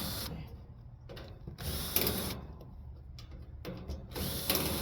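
Screws being backed out of a central air conditioner's sheet-metal cabinet with a screwdriving tool: three short bursts of tool noise about two seconds apart.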